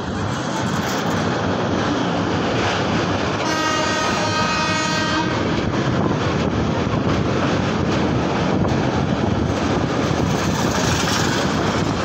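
A train running with a steady rumble and rattle. Its horn sounds once, for a little under two seconds, about three and a half seconds in.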